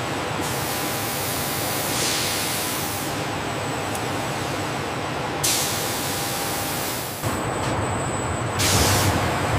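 Steady hissing factory machinery noise with a faint steady whine, changing abruptly in character several times.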